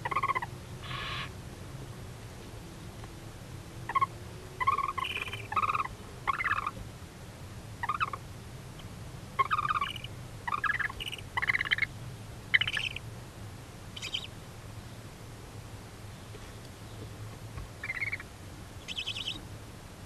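Barn owls giving a string of short, harsh twittering calls, about fifteen in all, spaced irregularly with a pause of a few seconds near the middle and a last pair near the end. This is the chittering of a barn owl pair as the male comes to the brooding female to mate.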